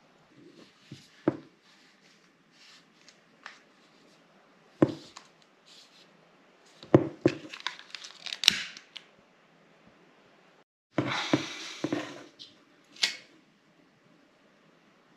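Hands handling an electrical cable while splicing it and fitting heat-shrink tubing over the joint: rustling, scraping and scattered sharp clicks, with a denser rustle for about a second and a half near the end.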